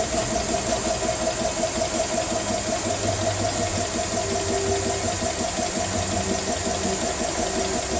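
GX CS3 portable 4500 psi PCP air compressor running steadily under load as it builds pressure, with a rapid, even pumping beat over a steady high hiss.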